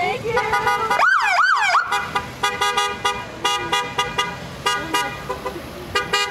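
Car horns honking over and over, in several long toots, from passing parade cars. Near the start a patrol vehicle's siren gives a short two-cycle whoop.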